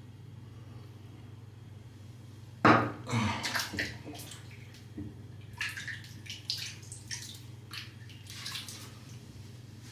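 Water splashing at a bathroom sink: a sharp splash a few seconds in, then irregular splashes and drips, likely as more water is worked into the shaving brush's lather.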